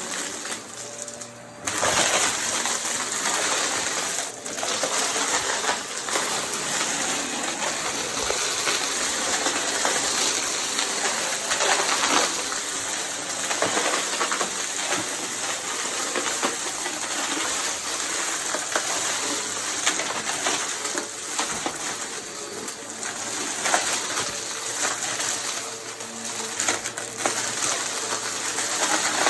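Vacuum cleaner running, being worked quickly over the floor, with a rattling hiss that swells and dips. It drops briefly about a second in, then comes back at full level.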